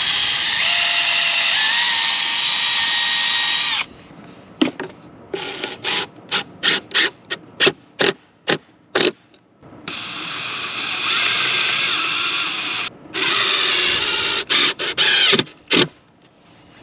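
Cordless DeWalt drill running at speed in two long whirring runs with a whine that shifts in pitch. After each run the trigger is pulsed in a string of short bursts, about two a second.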